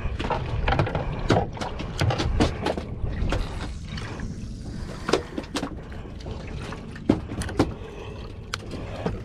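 Irregular knocks and clicks of rod and boat handling over a steady low rumble of wind and water on a small boat at sea.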